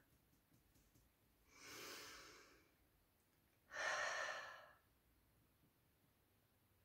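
A woman's breathing: one audible breath, then about two seconds later a louder, longer sigh out.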